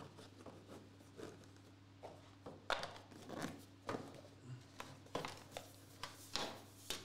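Hands packing a trading card: a clear plastic card holder and a metal tin with a foam insert handled on a desk, giving scattered light taps, clicks and rustles over a faint steady hum.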